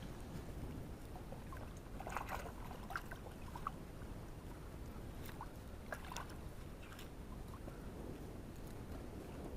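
A plastic bag holding fish being handled in shallow river water: a steady low rumble with scattered light clicks and small splashes, clustered about two to three seconds in and again around six seconds.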